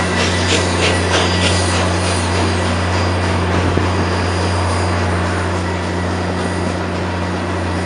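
Passenger train rolling along the track, heard close to the wheels: a steady rumble of wheels on rail and rushing air, with wheels clicking over rail joints a few times a second during the first couple of seconds.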